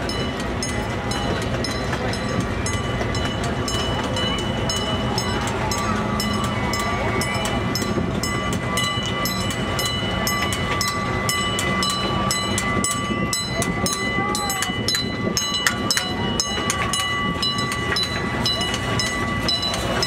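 Gasoline-powered miniature park train running steadily, carrying riders. The engine drone and a steady whine go with a rapid run of clicks from the wheels on the track.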